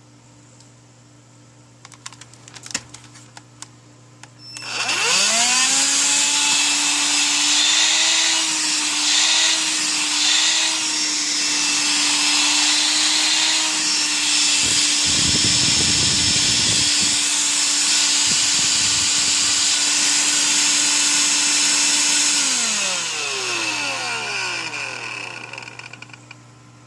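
Electrolux ZB3012 18V cordless stick vacuum switched on after a few light clicks, running on its newly replaced lithium battery pack. The motor spins up with a rising whine and runs steadily for about 18 seconds, with a lower rumble twice in the middle. It then winds down with a falling whine as it is switched off.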